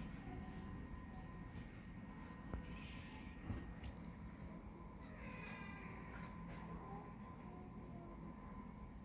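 A high-pitched chirp pulsing evenly about four times a second, over a low steady hum.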